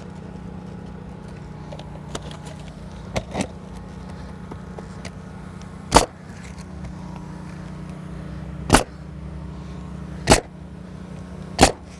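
Pneumatic coil roofing nailer firing four sharp shots in the second half, about one to three seconds apart, driving nails through asphalt shingles. A steady low hum runs underneath.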